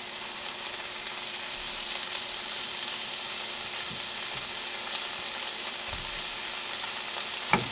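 Goose hearts sizzling steadily in a frying pan, with a few light clinks of a fork against a bowl.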